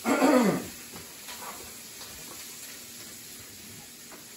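Sausage frying in a skillet: a steady sizzle. A brief loud noise at the very start stands out above it.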